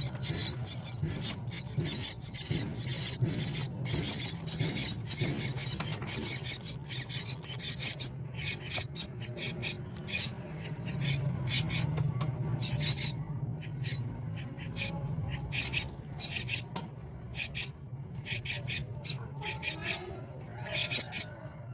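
Myna nestlings giving harsh, raspy begging calls in rapid short bursts, packed tightly for the first several seconds and then coming in looser clusters, over a steady low hum.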